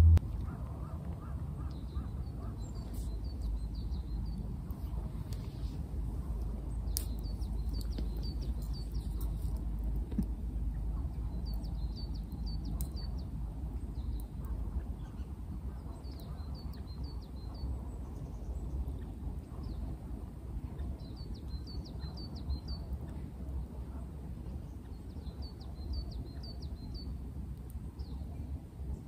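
Outdoor ambience. A small songbird sings short, quick runs of four or five high chirps, repeating every four or five seconds over a steady low rumble.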